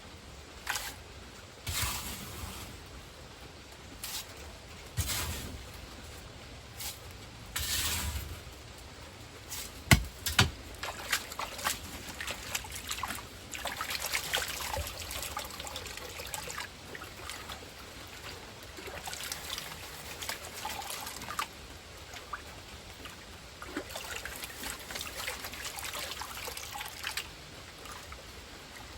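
Water sloshing, trickling and pouring in a plastic gold pan as gravel is washed down during gold panning, in repeated short splashes, with a sharp knock about a third of the way through.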